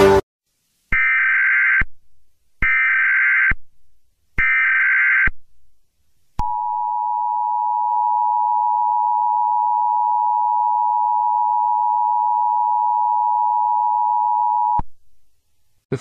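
Emergency Alert System header: three short bursts of SAME data tones, each just under a second, then the EAS attention signal, a steady two-tone alert held about eight seconds before cutting off suddenly.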